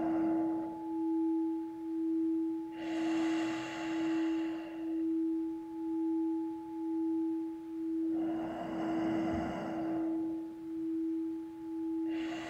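Singing bowl ringing with a steady sustained tone that wavers about once a second. Over it, a person breathes deeply and audibly through the nose, each breath lasting about two seconds, with one breath ending just after the start, two more in the middle and another starting near the end.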